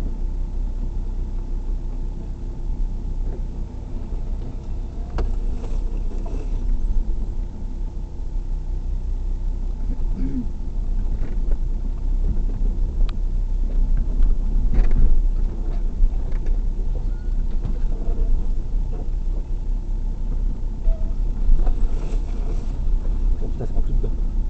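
Off-road vehicle heard from inside the cabin, driving slowly over a rough dirt track: a steady low engine drone and rumble, with scattered knocks and rattles as it goes over bumps.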